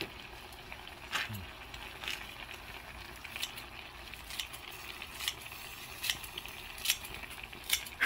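Pot of ramen boiling over a burning solid-fuel canister: a steady sizzling hiss with a sharp crackle about once a second. The fuel crackles like burning firewood.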